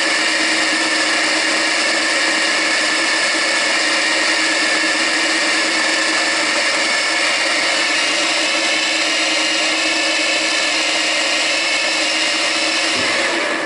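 Deckel FP1 milling machine running, its spindle turning a small end mill that cuts a slot into a metal block held in a vise: a loud, steady whine of motor and gearing mixed with the cutting. It fades out near the end.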